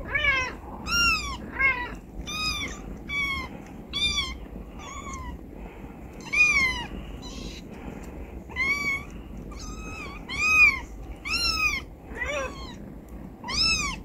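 Young kittens mewing, about fifteen short, high-pitched cries that each rise and fall, coming in quick runs with a pause of a couple of seconds midway.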